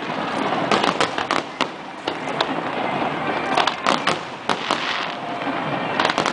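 Aerial fireworks going off in a show: irregular sharp bangs, several a second, over a steady crackling noise.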